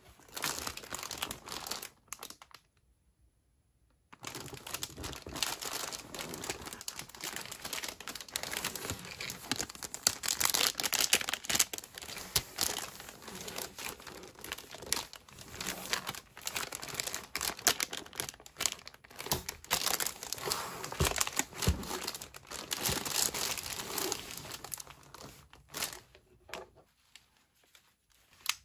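Clear plastic shrink-wrap crinkling and crackling as hands grip and turn over a wrapped cardboard ration box. It comes in a short burst, stops for about two seconds, then runs on almost without a break before dying away near the end.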